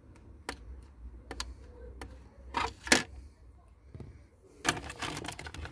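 Plastic clicks and rattles from a thin screwdriver prying at a clip in a car's steering-column trim and module: scattered single clicks, a loud snap about three seconds in, then a quick run of clattering near the end.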